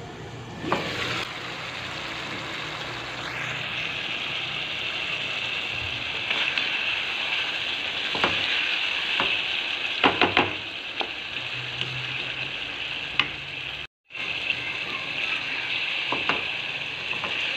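Chicken pieces frying in oil in a karahi, a steady sizzle as the cooking liquid boils off. A spatula knocks and scrapes against the pan several times.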